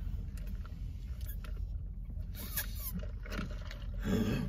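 Root beer being sipped through a plastic straw against a steady low car-cabin hum, with small clicks from the cup. About four seconds in there is a short, louder breathy exhale.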